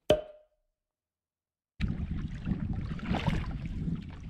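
A sharp click with a short ringing tone right at the start, then silence, then from about two seconds in the continuous splashing and lapping of lake water around a canoe, with a low rumble and a couple of louder swells.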